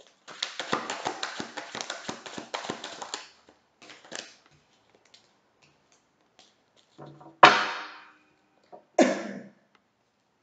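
Tarot deck being shuffled by hand: a quick run of flapping card clicks for about three seconds, a few scattered ticks, then two sharp thumps a second and a half apart near the end, the first the loudest.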